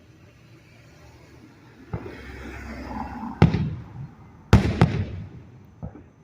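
Fireworks bursting: a string of about five sharp bangs with rumbling echo between them, the two loudest close together a little past the middle.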